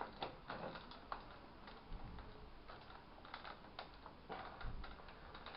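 Faint, irregular small clicks and taps of a screw being tightened into a plastic toy lantern's light cover, with hands handling the plastic housing.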